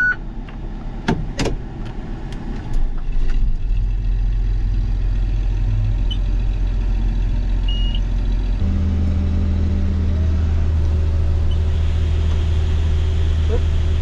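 Combine engine running with a steady low drone that steps up in speed and load about halfway through. There are a few clicks and knocks at the start and two short electronic beeps in the middle.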